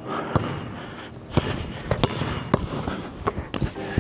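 A basketball bouncing on a hardwood gym floor: about half a dozen sharp, irregularly spaced thuds echoing in a large hall.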